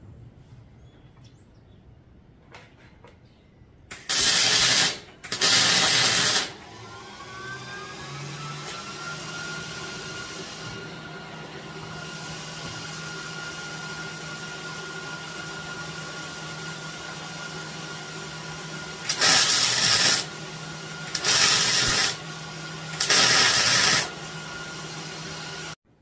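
Wire-feed (MIG) welder tack-welding rebar legs to a steel base plate: five short bursts of crackling arc, each about a second long, two about four and six seconds in and three near the end. Between them a steady motor hum winds up in pitch and then holds.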